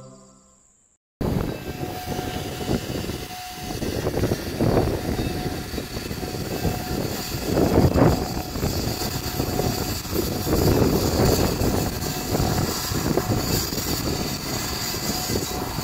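Small steam locomotive, Klondike Kate, hissing as steam blows out low at its front, with strong wind buffeting the microphone; the noise swells and eases several times.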